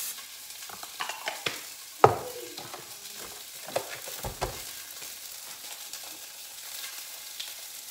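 Skirt steak searing in a hot pot with a faint steady sizzle, under a series of knocks and clunks as the slow cooker's crock is handled; the loudest knock comes about two seconds in, with low thumps about four seconds in.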